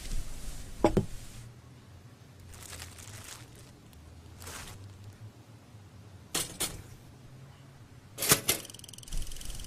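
A few sharp knocks, the last two coming as quick pairs, with short soft whooshes between them.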